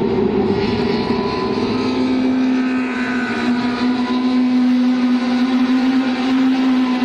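Small touring race cars running hard as a pack comes through a bend, several engines at high revs at once. About two seconds in, one engine settles into a steady held note.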